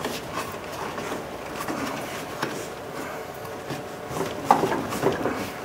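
A replacement interior door handle being pushed and shifted into its opening in a 1996 Ford Ranger door: light scraping and scattered small clicks, with a couple of sharper knocks about four and a half and five seconds in.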